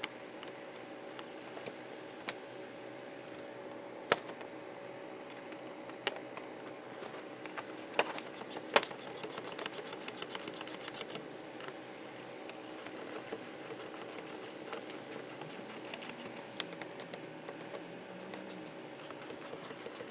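Ratchet wrench with a 10 mm socket clicking in quick runs as the lower bumper bolts are run in, after a few sharp knocks of tool and plastic in the first half.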